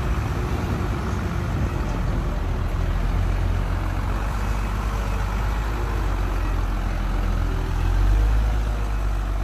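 Diesel engine of a loaded Hyundai dump truck running under load as it creeps over a rutted dirt track, a steady low rumble that grows louder about eight seconds in.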